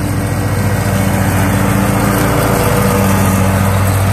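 Zero-turn riding mower running steadily with its deck cutting tall, thick grass, the engine's steady hum growing louder as it passes close, loudest about three seconds in.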